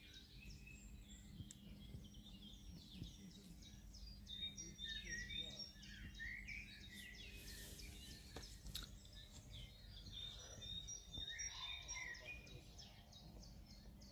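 Several small birds singing and chirping, faint, in quick overlapping calls, over a low steady background rumble.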